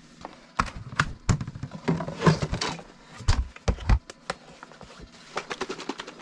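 Things being handled and set down on a tent floor: a run of clicks and knocks with a burst of rustling, and two dull thumps a little past the middle.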